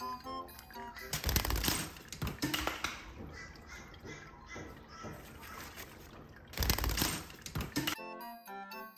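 A budgie splashing and fluttering its wings in bath water, in two loud bursts about a second in and near the end with smaller splashes between, over light background music with plucked notes.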